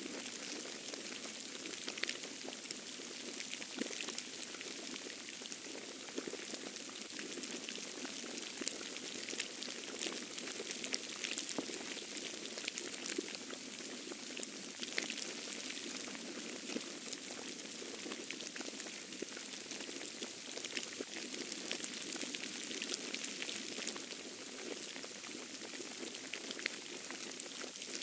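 Falling snow pattering steadily: a dense, even crackle of tiny ticks over a low background hum.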